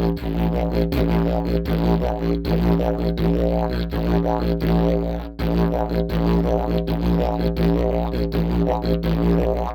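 Homemade didgeridoo played as a continuous low drone, its upper overtones shifting in a rhythmic pattern with regular short accents. The drone dips briefly about five seconds in.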